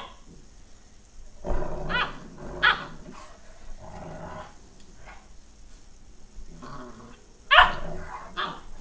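Newfoundland dogs playing: a few short barks and yips, the loudest near the end, with growling between them.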